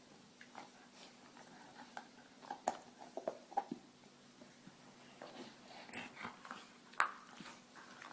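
A dog whimpering in short, soft cries, with scattered light clicks and knocks, two sharper clicks near the end being the loudest.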